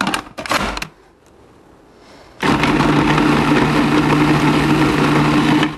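A few plastic knocks as the food processor's lid and bowl are handled, then, about two and a half seconds in, the small food processor's motor runs steadily for about three seconds, cutting butter into flour and brown sugar, and stops abruptly near the end.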